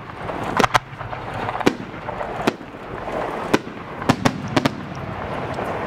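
Aerial fireworks shells bursting: a string of about nine sharp bangs, several close together a little after the four-second mark, over a steady rush of noise that grows through the second half.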